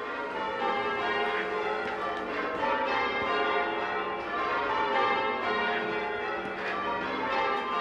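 Church tower bells rung in English-style change ringing by ringers pulling ropes: a continuous peal of many overlapping bell tones.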